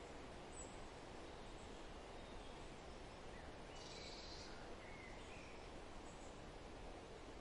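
Quiet, steady outdoor background noise with a few faint bird calls scattered through it, the clearest a brief high chirp about four seconds in.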